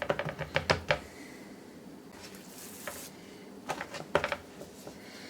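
A shaker bottle of dry barbecue rub is shaken and tapped while seasoning a flank steak. Quick rattling clicks come in the first second, then a brief soft hiss, then another short burst of clicks about four seconds in.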